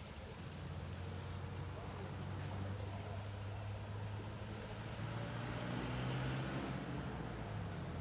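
A low, steady engine drone that swells a little about six seconds in and then eases off, over a faint high buzz of insects.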